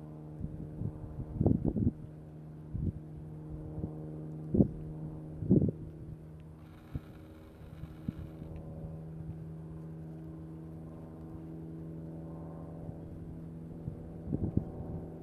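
A steady low motor hum, with a few short irregular thumps of wind buffeting the microphone.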